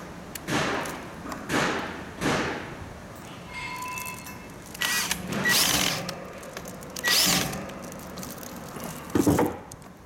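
Cordless drill/driver running in short bursts as it drives screws on a stand fan's head, mixed with knocks and handling noises; several separate bursts, the loudest near the end.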